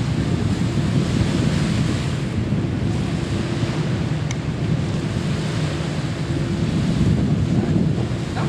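Wind buffeting the microphone over the steady rush of the sea, with a faint steady hum in the middle.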